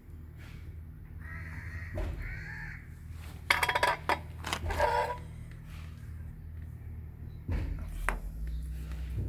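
Harsh animal calls, a few in quick succession, loudest about three and a half to five seconds in, over a low steady hum.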